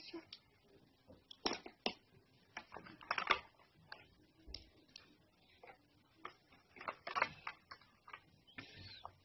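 Irregular light clicks and taps of small objects, a pen and small toy pieces, being handled by a toddler.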